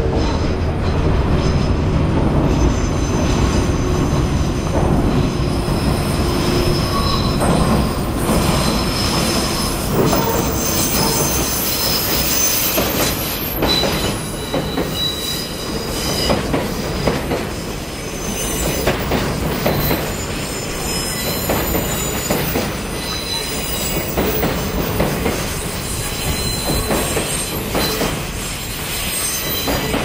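Diesel-hauled container freight train passing on a curve. The locomotive's engine rumbles heavily at first. Then the wagons roll by with repeated clacks over the rail joints and a steady high wheel squeal from the curve.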